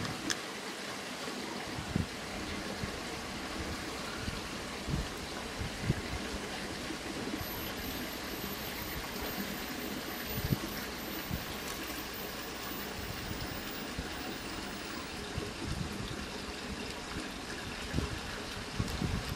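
A steady rushing noise, with a few soft low thumps now and then.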